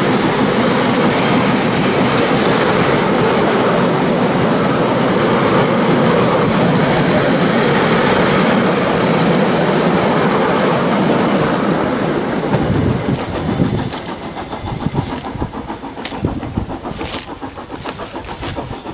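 Train of heritage passenger carriages rolling past on the track, wheels rumbling and clicking over the rails. The sound dies down after about twelve seconds as the train moves away, leaving fainter, uneven noise with scattered clicks.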